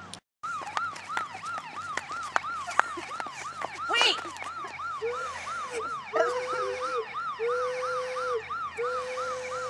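Electronic toy gun sound effect: a siren-like warble rising and falling about two and a half times a second. About halfway through, a lower held beep joins it, about a second long, four times.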